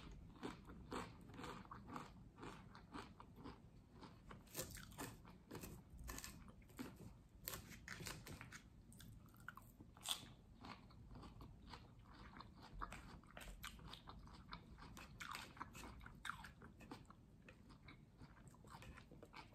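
A person chewing crunchy food, many quiet crisp crunches in an uneven run.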